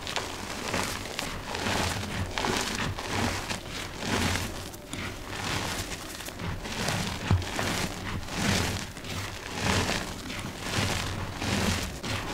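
Loose gym chalk powder and clumps squeezed and crumbled between bare hands: soft, dusty crunching over a powdery hiss, in irregular swells about once a second.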